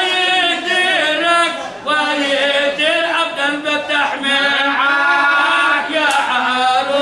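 A man singing, drawing out long wavering sung lines with short breaks between phrases.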